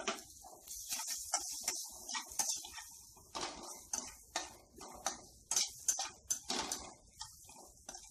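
Metal spatula scraping and knocking against a steel kadai while stirring amla pieces in spice powder, in quick, irregular strokes about two a second.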